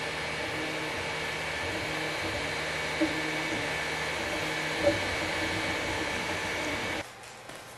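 Longer LK5 Pro 3D printer printing: a steady whir from its cooling fans with a high fan tone, under short low tones from the stepper motors that change in pitch as the print head moves. It cuts off suddenly about seven seconds in.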